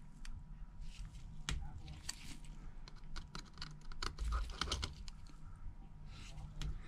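Light, irregular clicks and taps of a precision screwdriver and tiny screws against the metal brackets inside an opened iPhone XR.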